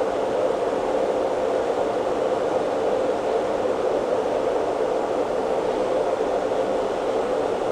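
Steady whooshing air noise, most likely a fan or air blower on the microsoldering bench, running without change.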